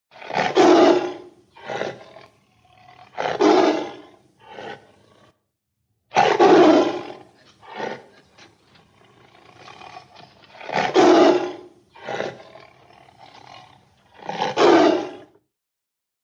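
An animal roaring: five loud roars a few seconds apart, each followed by one or two shorter, weaker grunting calls.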